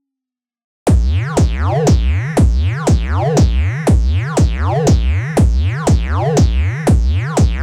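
Synthesized electronic loop: a low thump with a falling zap tone, repeating about twice a second, starting about a second in.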